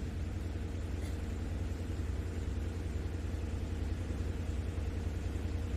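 Steady low hum with no change in level, made of a few faint steady tones.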